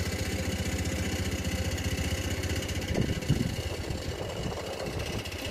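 A steel bucket rattling from vibration, a fast, even, steady rattle.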